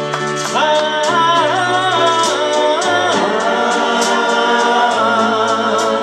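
A man singing into a microphone over backing music, drawing out long notes with a wavering pitch.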